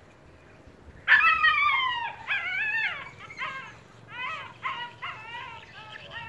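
Phu Quoc ridgeback dog whining and yelping in high, falling cries, starting about a second in and repeating in quick runs, excited at a rat in a trap cage held above it.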